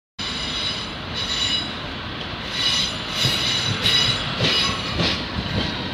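Wheels of a Class 156 diesel multiple unit squealing as it runs over curved track and pointwork, several high squeal tones rising and fading in repeated waves, with knocks from the wheels over the rail joints.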